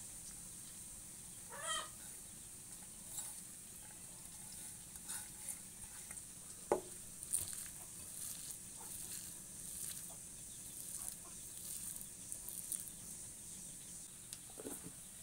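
A hand mixes mashed boiled potato with sliced onion and chopped coriander in a glass bowl, giving soft squishing and scattered light clicks. Short animal calls sound about two seconds in and again near the end, over a steady faint hiss.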